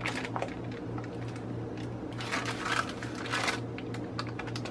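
Parchment paper rustling and crinkling in short bursts as it is handled while cut cookie dough is peeled off it, over a low hum that pulses about four times a second.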